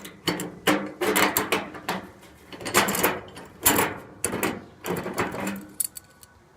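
Steel hinge parts and carriage bolts knocking and scraping as they are fitted together by hand, in an irregular run of sharp metallic clacks.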